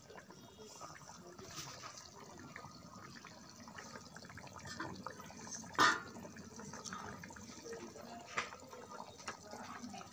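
Chicken curry gravy boiling in a kadai, bubbling with a steady run of small pops and crackles. One sharp, louder pop comes a little before six seconds in and a smaller one about eight and a half seconds in.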